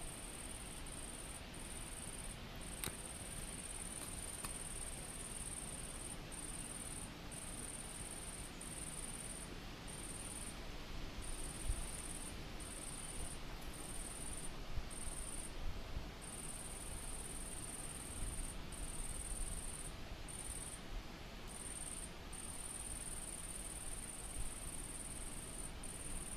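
Insect stridulating in a high, thin, steady buzz, running in long stretches broken by short gaps, over a low rumble with a few soft bumps.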